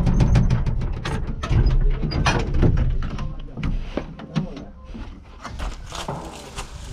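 UTB Universal U650 tractor's diesel engine running, its rumble dying away about three seconds in, under repeated clicks and knocks of the cab door and of someone climbing down out of the cab into dry grass.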